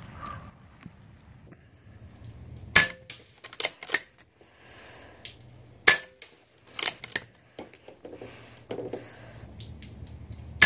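Ataman M2 .25 calibre PCP air rifle firing three shots about three seconds apart, each a sharp crack with a short ring after it, with smaller clicks between the shots.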